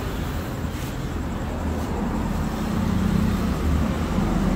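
Steady low rumble of engines from nearby vehicle traffic, with a low hum that grows stronger around the middle.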